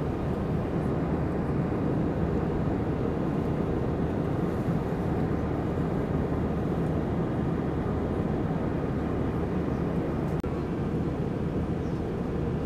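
Steady cabin noise of an Airbus A321-131 in cruise, heard at a window seat over the wing: a low, even rumble of its IAE V2500 turbofans and the airflow over the fuselage. It drops out for a moment about ten seconds in.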